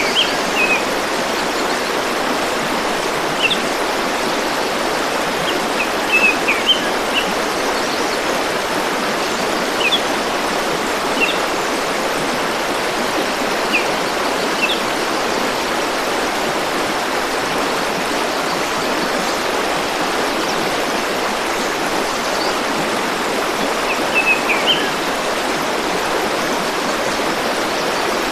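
Steady rushing of a flowing river or stream. Short bird chirps come and go over it, in small clusters now and then.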